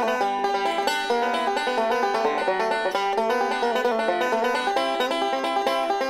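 Huber Workhorse five-string resonator banjo picked with fingerpicks, playing a steady stream of quick, bright plucked notes in bluegrass rolls.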